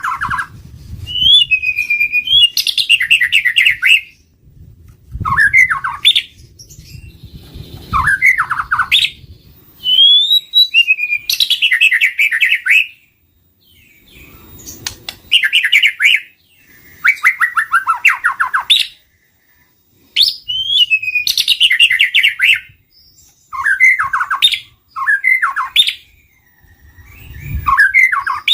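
White-rumped shama singing: loud phrases every two or three seconds, each a rising whistle or a burst of fast rattling trills, with short pauses between phrases.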